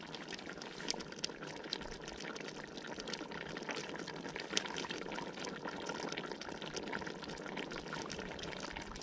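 Crayfish in tomato sauce bubbling in a large uncovered stainless-steel pot, a steady simmer full of small pops. The heat has just been lowered and the pot left open so the sauce reduces.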